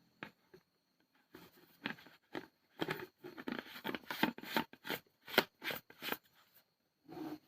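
Hands working the parts of an electric paint spray gun during a washer repair: an irregular run of clicks, scrapes and rustles, busiest in the middle.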